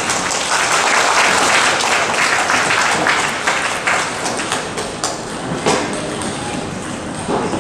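Arena crowd applauding and cheering at the end of a point in a table tennis match, dying away after about four seconds. Then a few separate sharp taps, typical of a table tennis ball bouncing between points.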